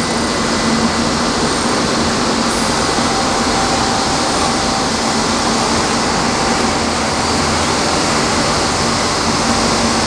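Refrigerator-recycling line machinery running: a loud, steady industrial noise with a constant hum.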